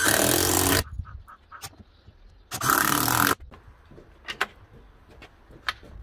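A cordless drill-driver driving screws into timber in two short bursts, one at the start and one about two and a half seconds in, each under a second long. A few sharp clicks and knocks follow.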